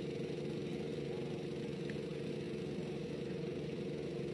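Passenger ship's engine running steadily, a constant hum with a strong, even drone.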